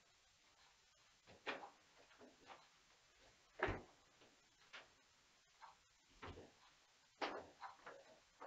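Near silence: quiet room tone broken by a handful of faint, short clicks and taps at irregular spacing, the loudest a little before halfway through.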